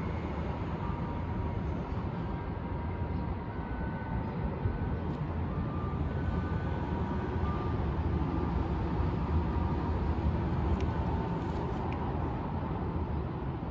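Faint bell-type chime melody of a traditional Japanese lullaby played over a distant municipal disaster-prevention loudspeaker: the 10 p.m. time chime. Single notes sound and fade one after another above a louder steady low rumble.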